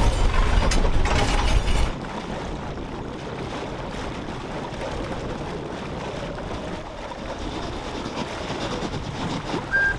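Wind buffeting the microphone and water rushing past a sailboat's hull as the sails are set. The first two seconds are louder and rougher and cut off abruptly. Two short electronic beeps sound near the end.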